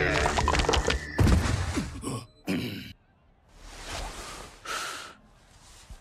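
Anime fight-scene sound effects: a dense run of thuds and impacts over the first three seconds. After a short gap come two brief rushing sounds about a second apart.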